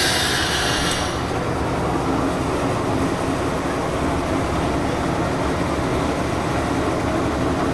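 A train running with a steady low rumble, opening with a burst of loud hissing that dies away about a second in.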